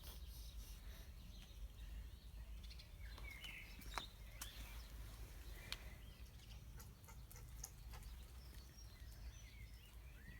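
Faint ambient noise with a steady low hum, a few short bird chirps and a couple of sharp clicks.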